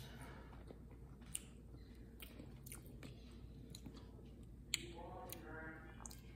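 Faint mouth sounds of someone sipping soup from a metal spoon and chewing, with a few sharp clicks, the loudest about three-quarters through, and a short hum near the end.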